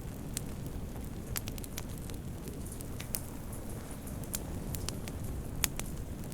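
Wood fire burning in a fireplace: a steady low hiss with frequent sharp, irregular crackles and pops, one louder pop near the end.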